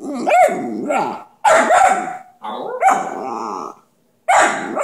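Brindle puppy "talking": about four drawn-out, wavering howl-like vocalizations in a row, each around a second long.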